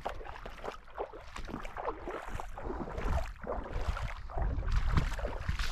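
Gumboots wading through shallow water: irregular sloshing, splashing steps, over a low wind rumble on the microphone.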